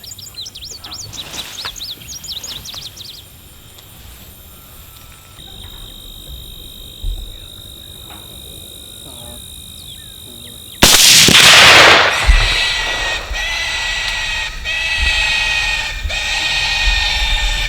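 Birds chirping and a steady high insect buzz, then, about eleven seconds in, a volley of several rifles fired at almost the same instant at a group of wild hogs, one loud crack lasting about a second.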